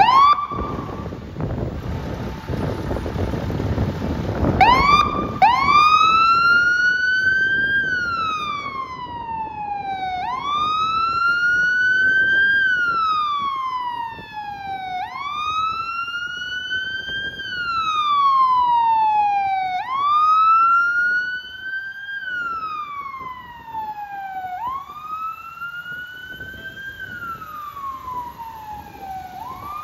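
A 2006 Pierce Quantum fire engine's siren sounds on a wail setting. Two short upward chirps come about half a second and four and a half seconds in, over the engine's rumble as the truck pulls out. From about five seconds in it wails, rising and falling in long sweeps about every five seconds.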